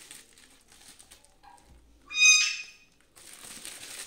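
Scissors snipping through a plastic courier mailer with faint rustling. About two seconds in a short, high-pitched animal call stands out. The plastic mailer then crinkles steadily as it is pulled open.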